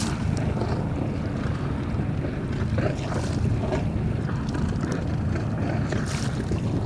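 Steady low rumble of a small motorboat under way on choppy water, with wind buffeting the microphone and water splashing against the hull about three times.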